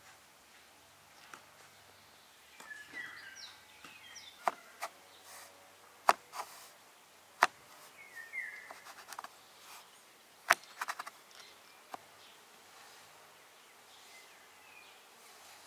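Sharp, scattered taps and knocks on a wooden board as dough pieces are cut, pressed and set down, in about a dozen separate clicks from a few seconds in until near the end. Birds chirp in short phrases in the background.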